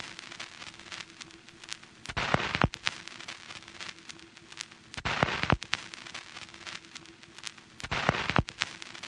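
Crackling sound effect under an intro title card: scattered sharp clicks and pops over a faint steady hum, with short louder bursts of crackle about every three seconds.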